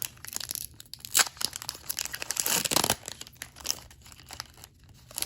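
Foil Pokémon card booster pack being crinkled and torn open: a run of irregular crackles, with a longer rip about two and a half seconds in.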